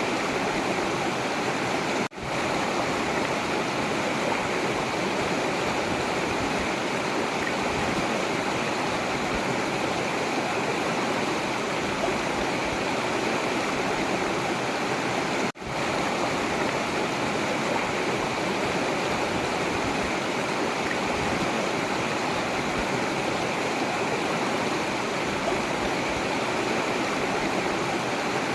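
River water flowing and rushing steadily, with two very short drops in the sound, about two seconds in and about halfway through.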